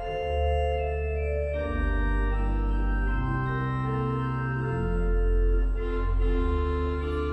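Organ music: slow, sustained chords over deep bass notes, the harmony changing every second or two.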